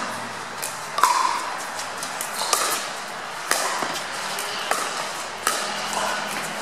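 Pickleball rally: paddles striking the hollow plastic ball with sharp pocks about once a second, some with a brief ringing tone.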